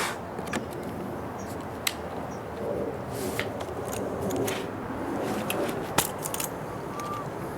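Small metallic clicks and taps of tools and parts being handled, with a few sharp clicks scattered through over a steady background hiss.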